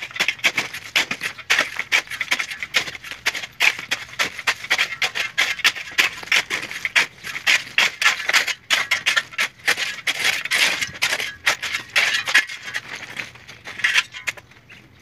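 Steel shovel scraping and digging into dry concrete rubble and gravel, a continuous run of gritty scrapes with small stones rattling.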